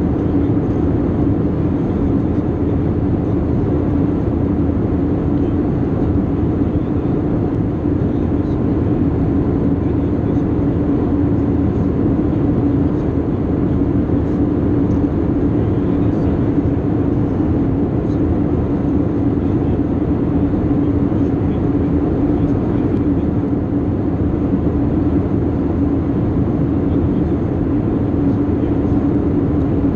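Airbus A320-232 cabin noise in flight, heard inside the cabin by the wing: a steady rush of airflow and engine drone with a constant low hum, from its IAE V2500 turbofan engines.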